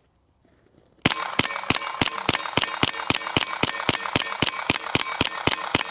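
Suppressed CZ Scorpion EVO 9mm carbine firing a rapid magazine dump: a steady string of evenly spaced shots, a little over three a second, starting about a second in. Steel targets ring with each hit.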